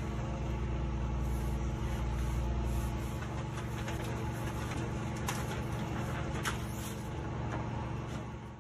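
Steady drone of an idling engine, like a truck or piece of machinery running nearby, with a couple of faint short scratches past the middle.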